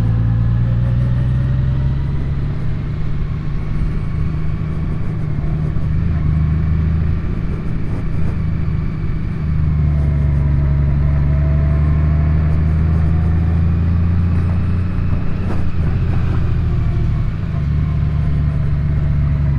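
Honda Gold Wing's flat-six engine running at road speed, with a low steady rumble; the engine note changes about halfway through and again near the end.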